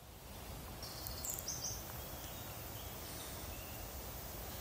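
Outdoor ambience: a steady low rumble on the microphone, with a few short, high bird chirps about a second in.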